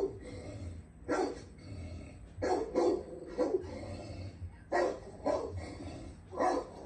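Dog barking at a large snake: about eight short barks at uneven intervals, some coming in quick pairs.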